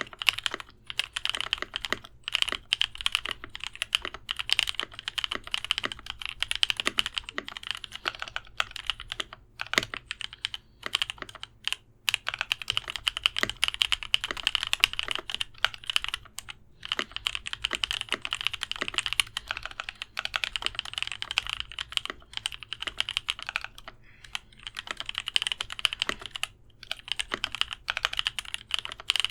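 Typing on an Idobao ID80 mechanical keyboard with lubed NovelKeys Cream linear switches and an acrylic bottom plate. It is a fast, steady run of keystrokes broken by a few short pauses.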